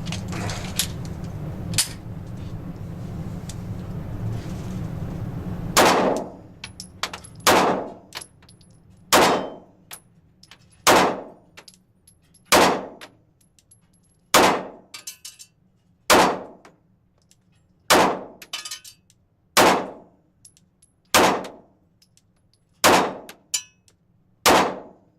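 Glock 27 pistol fitted with a Lone Wolf 9mm conversion barrel, firing 9mm rounds at a slow, even pace: about twelve shots roughly 1.7 seconds apart, starting about six seconds in. Before the first shot there is a steady rushing noise and a few small clicks.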